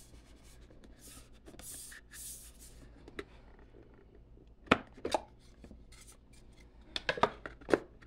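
Black walnut dice tower's wooden sleeve handled and worked loose: faint rubbing of wood on wood, a single sharp click about halfway through, then a quick run of clicks and knocks near the end.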